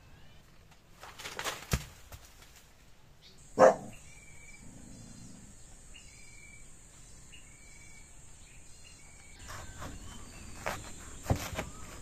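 Leaves rustling and a sharp snap as a banana heart is cut from its stalk with a pole-mounted blade, then a heavy thud about three and a half seconds in as it drops. After that a steady high insect drone and a bird's short chirps repeating about once a second, with a few knocks near the end.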